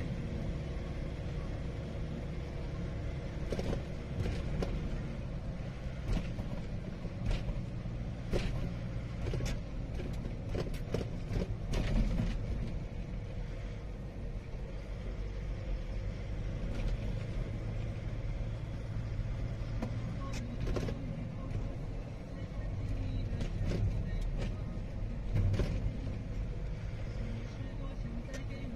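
Engine and road noise heard from inside the cab of a moving vehicle: a steady low drone, with scattered rattles and knocks throughout.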